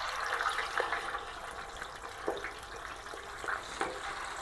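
Raw chicken legs just put into hot oil in a disco (plow-disc pan), frying with a steady sizzle and a few scattered pops and crackles.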